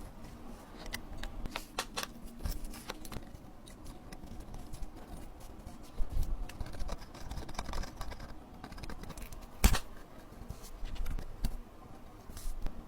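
Small metal hand tools clicking and scraping against watch parts at a workbench: irregular light ticks and scratches, with one sharper click about ten seconds in.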